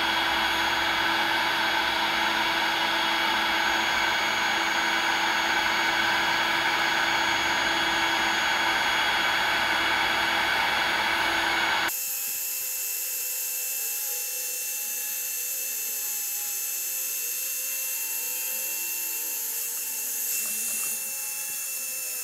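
Cordless Looftlighter X fire starter running its blower steadily, pushing air into charcoal briquettes that are already glowing to build up the embers. About twelve seconds in the sound abruptly turns thinner and hissier.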